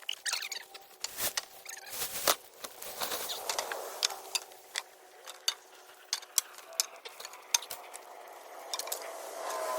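Dry brush and cut tree limbs being gathered by hand: branches rustling and scraping, with many sharp twig snaps and cracks.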